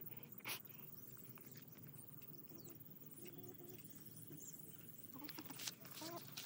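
Faint outdoor ambience with scattered distant bird calls and a few soft clicks.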